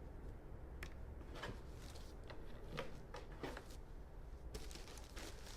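Light handling noises as items and their packaging are moved about in a cardboard box: scattered short rustles and soft taps, over a faint low hum.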